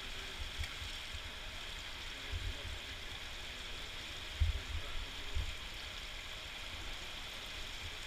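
Indoor swimming pool ambience: a steady watery hiss of water running in the pool's overflow gutter. A few short low thumps come about two and a half, four and a half and five and a half seconds in.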